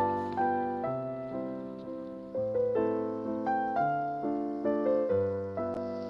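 Background piano music: a slow, gentle piece of struck notes that ring and fade, with the bass note changing about every one and a half seconds.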